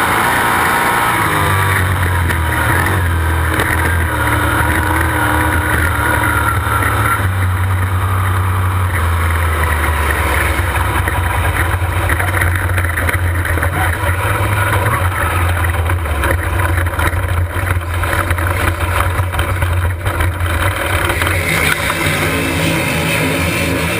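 Sprint car's V8 engine running on a dirt track, heard close up from the car itself, its pitch stepping up and down with the throttle.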